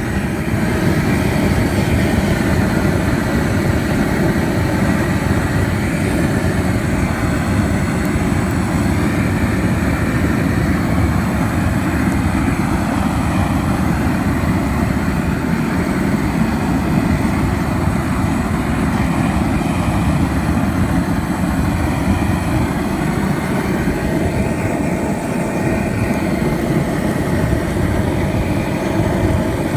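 Handheld propane weed torch burning with its trigger held open: a loud, steady rush of gas and flame, deep in tone, that does not break.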